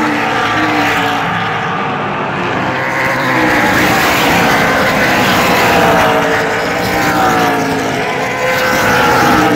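Several super late model stock cars' V8 engines running together as the cars pass on the short oval, their pitches gliding up and down as each car goes by.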